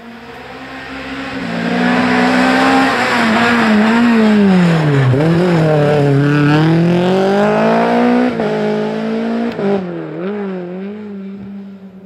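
Renault Clio Williams rally car's 2.0-litre four-cylinder engine approaching and passing at full effort through a tight bend. The revs drop as it slows into the corner, climb hard on the exit, break with two quick upshifts, then fade as the car pulls away.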